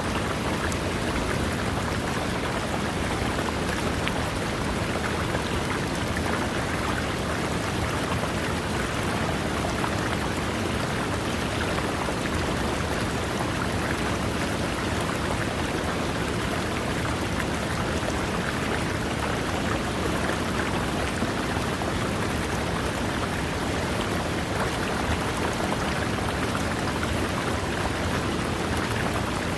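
River water running over rocks: a steady, even rushing and splashing.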